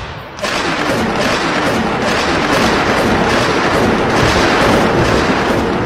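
Loud, steady rushing noise that starts about half a second in and holds without a break, a dramatic sound effect laid over the cartoon.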